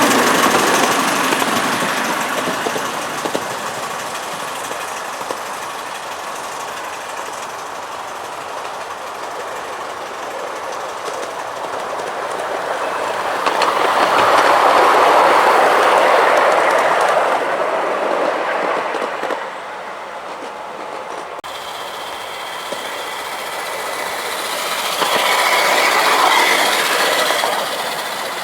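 7¼-inch gauge miniature train running along the track, getting louder as it passes by, twice.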